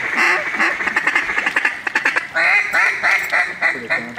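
Duck calls blown in a fast run of short, loud quacks, several a second, with a few longer drawn-out quacks about two and a half seconds in.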